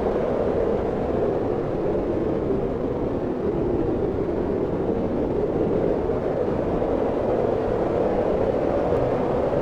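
Wind blowing steadily: an even, continuous rushing noise, deepest in tone, with no gusts or breaks.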